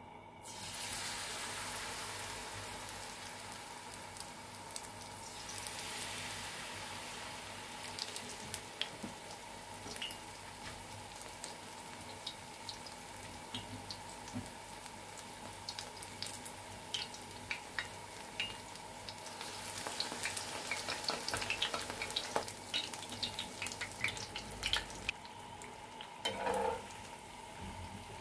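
Batter-coated pumpkin-flower pakoras frying in hot oil: a steady sizzle that starts abruptly, with scattered crackles and pops throughout.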